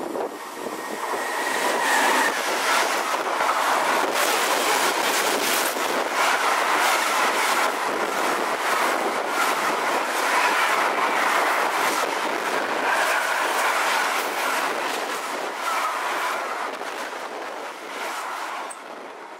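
Electric-hauled intermodal freight train of tank and box container wagons passing at speed close by, its wheels clattering over the rail joints. It swells over the first two seconds as the train arrives, stays loud while the wagons go by, and eases off near the end.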